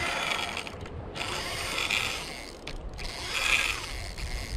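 Spinning reel whirring and clicking in several bursts while a hooked fish pulls against the line.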